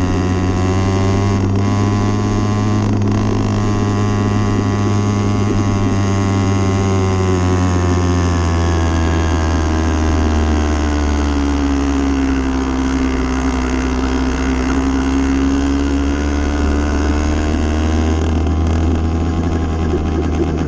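80cc motorbike engine running under way, holding a steady speed, easing off through the middle, then picking up again near the end.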